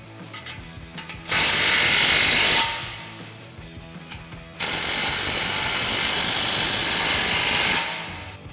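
Cordless impact wrench running in two bursts, one of about a second and then a longer one of about three seconds, as it tightens exhaust clamp nuts.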